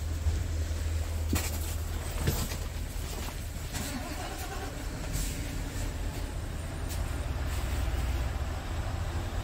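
Scania R450's 13-litre inline-six diesel idling, a steady low hum heard inside the truck's cab. A few light knocks sound over it in the first few seconds.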